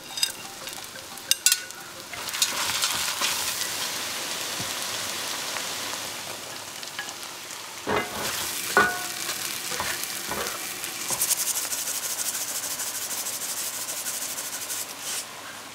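Diced matsutake mushrooms frying in chicken fat in a cast-iron pot, with a steady sizzle. A wooden spatula stirs them and knocks against the pot a few times. The sizzle grows louder and sharper in the last few seconds.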